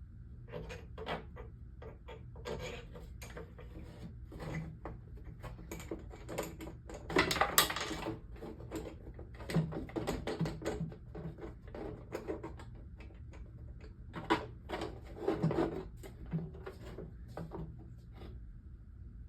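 Irregular clicks, knocks and scrapes of hand work on a pottery wheel as its metal back plate and screws are fitted back on, with a louder rattling handling about seven seconds in and again around fifteen seconds.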